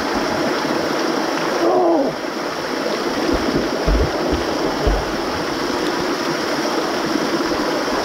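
A small waterfall pouring and splashing into a shallow creek pool, heard close up from water level, a steady rushing spatter. A few dull thumps come in the middle.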